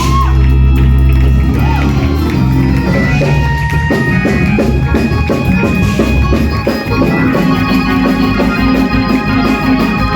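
Organ playing held chords to back a praise break in a church service. About four seconds in, a fast, even percussive beat joins it.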